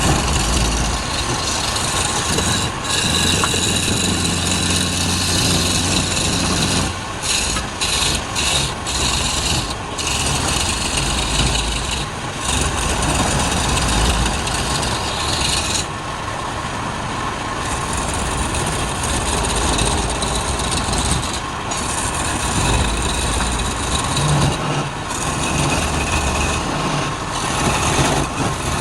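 Wood lathe running, with a turning tool cutting and rubbing against the spinning wood over the steady hum of the motor; the cutting noise drops out briefly several times.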